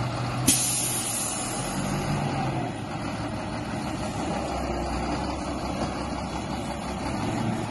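A heavy bus's engine running steadily as it crawls over a rutted dirt road, with a short, sharp hiss of air about half a second in.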